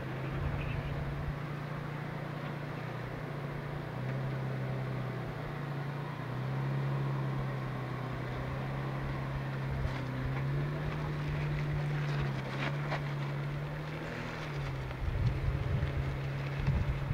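Nissan Xterra's V6 engine working at low revs as the SUV crawls up a steep rock wall, its pitch stepping up and down with the throttle. Wind buffets the microphone near the end.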